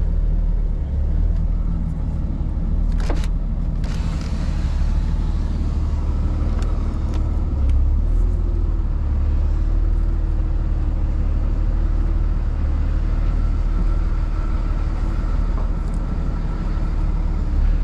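Tow truck engine running steadily, with a few sharp clicks about three seconds in.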